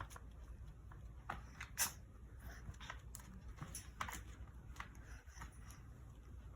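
Shih Tzu moving about at close range: a scatter of short, light clicks and scuffs over a faint low hum, the sharpest about two seconds in.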